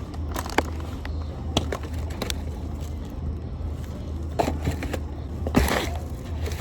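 Packaged goods being handled, with scattered light clicks and rustles and a louder rustle near the end, over a steady low hum.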